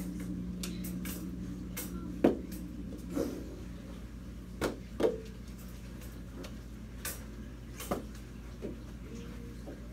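Sharp clacks of plastic mini hockey sticks and a ball in a knee hockey game: several scattered knocks, the loudest about two seconds in, over a steady low hum.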